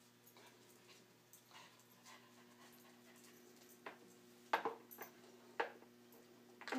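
A dog sniffing and panting with its head in a cardboard box, hunting for treats. Four short sharp sounds come in the second half, the loudest about halfway through.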